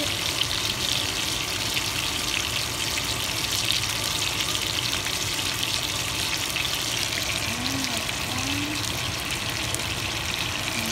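Steaks sizzling in butter in a frying pan: a steady crackling hiss with no let-up.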